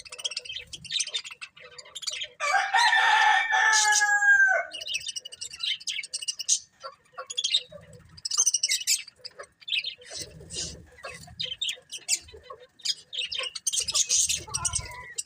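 Budgies chirping and twittering in quick, high, overlapping calls, with one louder, lower, drawn-out call lasting about two seconds starting about two and a half seconds in that drops in pitch at its end.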